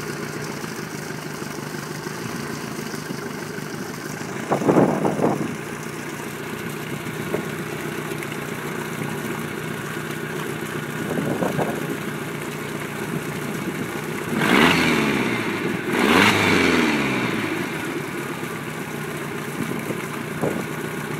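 3.0L MerCruiser four-cylinder boat engine idling steadily. It is revved briefly about a quarter of the way in and twice more in quick succession about two-thirds of the way through, the pitch rising and falling back each time.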